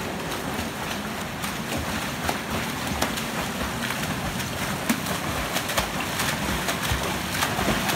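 Several swimmers splashing through a pool in a freestyle race: a steady wash of churning water with many small slaps from kicking legs and arm strokes.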